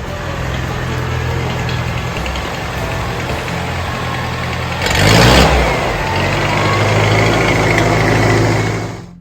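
Tractor engine running steadily, revving up in a louder surge about five seconds in, then settling and fading out near the end.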